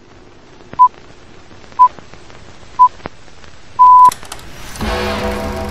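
Electronic countdown beeps: a short pitched beep once a second, three times, then a longer final beep. Music begins just under a second later.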